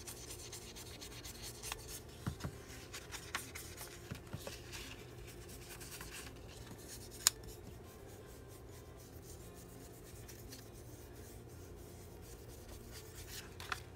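Foam ink-blending tool rubbing Distress Ink onto the edges of paper tags, a soft scratchy rubbing with small taps, and one sharp tap about seven seconds in.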